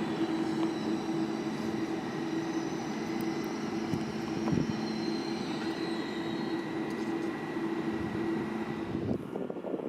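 Electric train at the station: a steady rumble with a constant hum and a thin high whine over it, which breaks off abruptly about nine seconds in.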